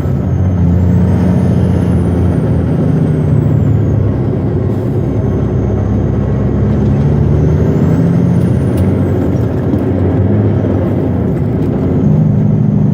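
Diesel engine of a Western Star logging truck running steadily under load, heard from inside the cab, its note shifting up and down in pitch. A faint high whistle rises and falls twice.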